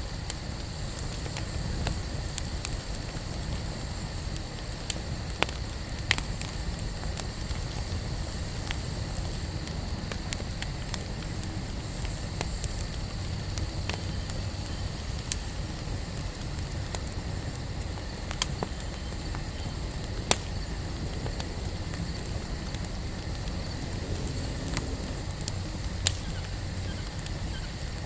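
Wood campfire burning steadily, crackling with scattered sharp pops from the burning wood over a steady low rumble.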